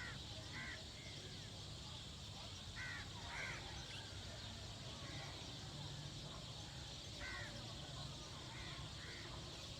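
Birds calling outdoors: short, harsh calls, often in pairs, coming in a few scattered groups over a steady low rumble and a faint hiss.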